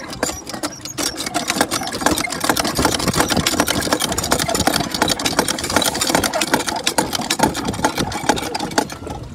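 Rapid, steady mechanical clatter from a hand water pump worked hard to push a rubber duck along a racing trough.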